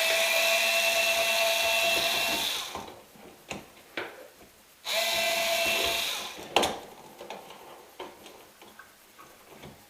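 Cordless drill-driver running in two steady bursts, about three seconds and then under two seconds, with a constant whine: backing out the mounting screws of an old GFCI outlet. A few light clicks and knocks follow.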